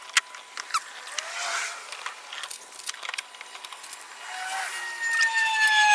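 Steamed wooden cap strips being pressed onto a wooden bending form and fixed with spring clamps: a run of sharp clicks and knocks of wood and clamp jaws. A faint steady whine runs underneath, and about five seconds in a louder whine comes in, sliding slowly down in pitch.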